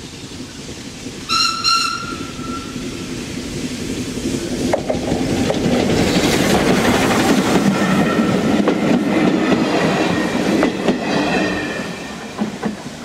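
Industrial saddle tank steam locomotive sounds a short whistle about a second in. It then passes close by hauling coaches, the locomotive and the wheels clattering on the rails building to a peak and fading away near the end.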